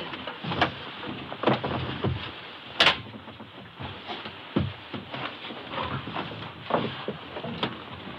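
Footsteps walking on carpet: soft, irregular thuds about once a second over a steady hiss, with one sharper click about three seconds in.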